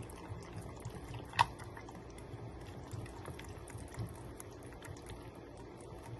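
Spoon stirring yogurt and mint chutney in a glass bowl: soft wet squelching with light ticks of the spoon on the glass, and one sharper clink about a second and a half in.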